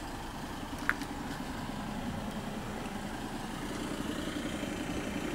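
Steady low hum of a running engine, with one short click about a second in.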